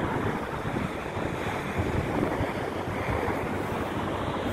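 Wind buffeting the microphone, a steady rough rumble over continuous road-traffic noise.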